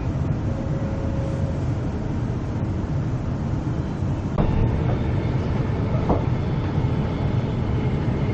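Inside the passenger car of an NGR electric train running: a steady low rumble from the wheels and car body. About halfway in it grows louder, with a faint steady whine and a couple of short knocks.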